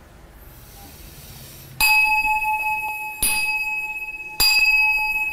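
Brass altar bowl bell struck three times with a wooden striker, a little over a second apart. Each strike rings with a clear, steady, bell-like tone that fades slowly. It is the ritual striking of the bell during offerings at a home altar.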